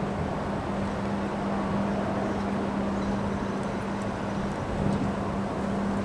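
Strong wind rushing through bare trees, a steady roar of noise that swells and eases slightly, with a constant low hum underneath.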